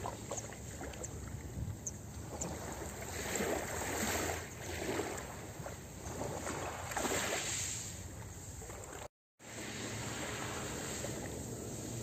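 Small waves lapping and washing over a pebble shore, swelling and ebbing every couple of seconds. The sound cuts out completely for a moment about nine seconds in.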